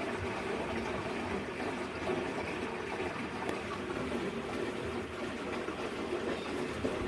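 Samsung washing machine running mid-cycle: a steady mix of water and machine noise from the drum.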